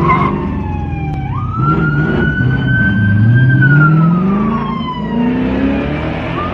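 Police siren wailing slowly, its pitch falling, jumping back up about a second in, then slowly rising and falling again. Underneath, a car engine accelerates hard, its pitch climbing three times.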